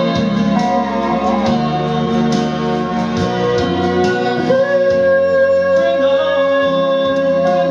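Live music: a woman singing a country ballad over guitar backing, holding one long note from about halfway through.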